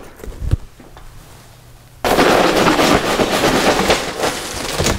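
A cardboard box being opened with a few knocks, then about two seconds in a loud, sudden rush of crinkling plastic as sealed bags of LEGO pieces slide out of the box, lasting nearly three seconds.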